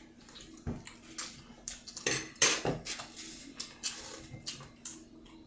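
People eating: scattered, irregular clicks and taps of utensils and take-out containers being handled, with chewing and mouth sounds.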